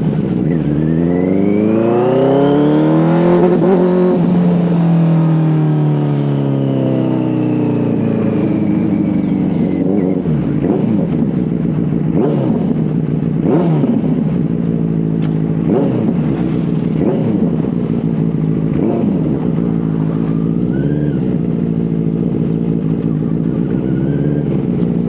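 Benelli TNT 600 four-cylinder engine under way: it winds up in revs over the first few seconds and eases back off, then goes through a string of short rises and falls in revs.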